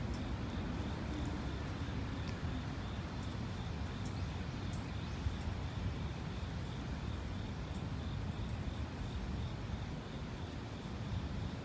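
Steady low outdoor background rumble, with a faint, evenly pulsing high whine over it and a few faint scattered ticks.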